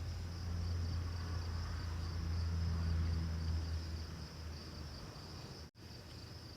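Steady high-pitched insect trilling, with a low hum that swells over the first few seconds and fades away. The sound cuts out for an instant near the end.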